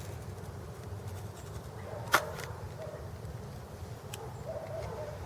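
A new tail-light bulb being taken out of its packaging: a quiet stretch of handling with one sharp click about two seconds in and a fainter tick near four seconds, over a low steady hum.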